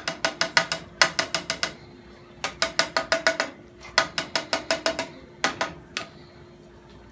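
Rapid runs of sharp metallic clicks, about seven a second, in bursts of one to two seconds with short pauses between, from a metal serving utensil being worked against the dishes while a plate is served.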